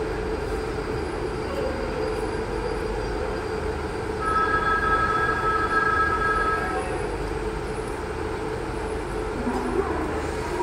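WAP-7 electric locomotive standing with a steady low hum. About four seconds in, its horn sounds once for about two and a half seconds: two steady tones held together, the signal for the express to depart.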